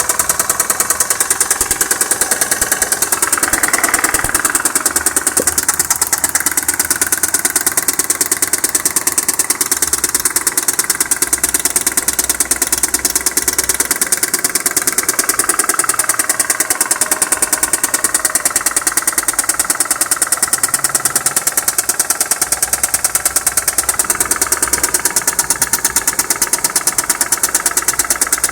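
Mazda Xedos 9 V6 engine idling with an even, rapid metallic knock, heard with the hood open. The knock is the engine fault the owner is tracing.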